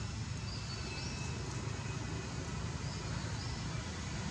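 Steady low outdoor rumble, like distant traffic or wind on the microphone, with a few faint high whistles about half a second in and again near three seconds.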